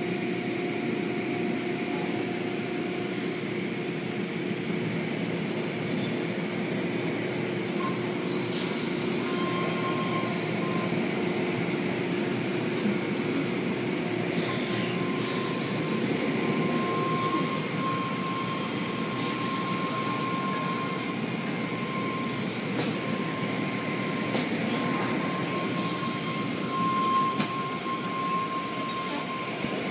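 Automatic tunnel car wash machinery running: a steady wash of water spray and cloth brush strips over a car, with a constant machine hum. A higher steady whine comes in about ten seconds in, and a few sharp knocks stand out.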